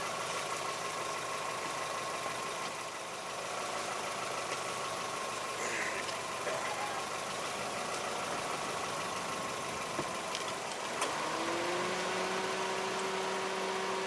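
Steady engine-like hum running nearby, with a steady higher tone that fades out about ten seconds in as a lower steady drone starts about a second later. A few light knocks.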